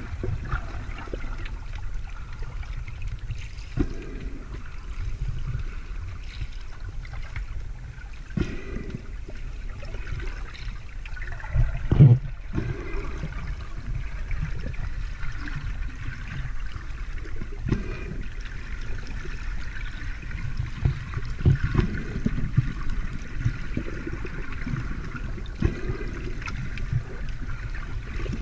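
Water moving and gurgling as heard by a camera held underwater: a steady muffled low rumble with scattered knocks, the loudest about twelve seconds in.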